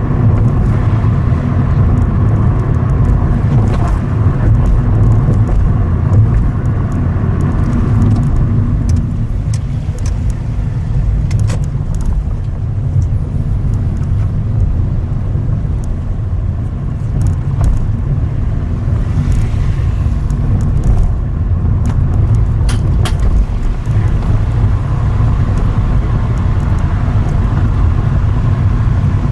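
A car driving: a steady rumble of engine and tyres on the road, with a few light ticks partway through.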